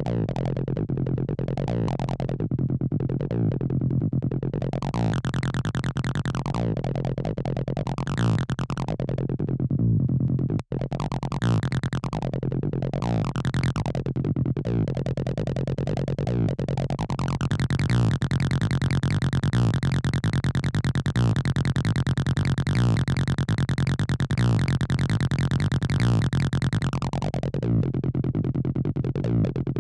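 Acid-style electronic music: a synthesizer line over a steady bass, its filter sweeping open and closed again and again, then held wide open for about ten seconds in the second half. The sound cuts out for an instant about eleven seconds in.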